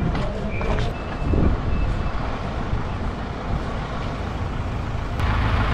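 A heavy vehicle's engine running steadily, with a few short high beeps like a reversing alarm in the first two seconds; a little after five seconds the engine sound steps up louder and harsher.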